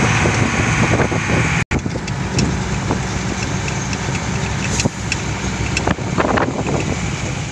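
Truck engine running steadily while driving over a dirt road, with frequent short clatters and rattles from the vehicle's metal body. The sound cuts out completely for a moment just under two seconds in.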